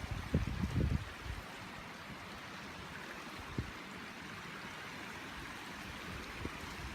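Steady rush of flowing water. Wind buffets the microphone for about the first second.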